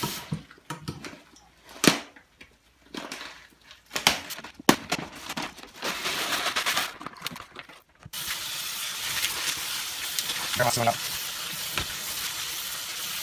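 A plastic bag of aquarium gravel rustles and gravel is poured rattling into a plastic strainer, with a few sharp clicks. About eight seconds in, the bathroom faucet runs steadily onto the gravel as hands stir it in the strainer.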